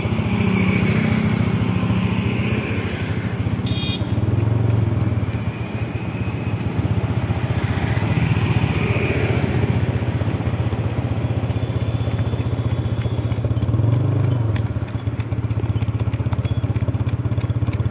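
Motor scooter engine running steadily at low riding speed, with small swells in engine note as the throttle changes.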